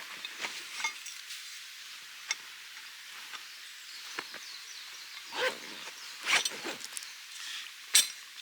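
Scattered clinks and short knocks, the loudest one near the end, over a faint steady hiss.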